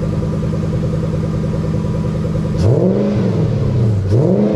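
Supercharged Lexus GS400's 1UZ-FE V8 idling cold through newly fitted 4.5-inch exhaust tips, then revved briefly twice. The first rev comes about two and a half seconds in, the second near the end, and each rises and drops back to idle.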